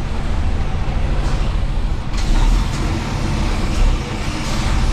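Lorry cab interior while driving: steady low engine rumble and road noise, with a few short sharp noises in the middle.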